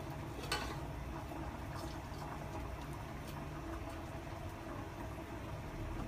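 Limes squeezed by hand over a ceramic bowl of sauce, the juice dripping in, with a sharp knock about half a second in and a few faint ticks after, over a low steady hum.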